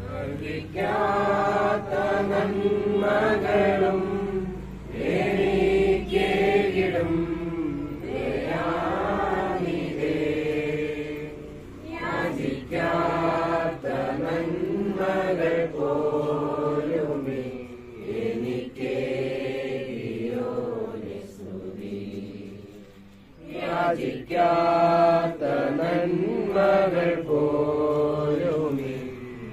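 A group of voices singing together, unaccompanied, in long held phrases with short pauses between them.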